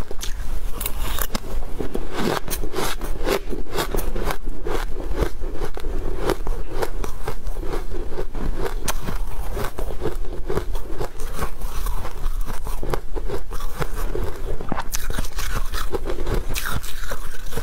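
Close-miked crunching and biting of shaved ice, a dense run of crisp crackles, with a metal spoon scraping through the ice in a plastic tub.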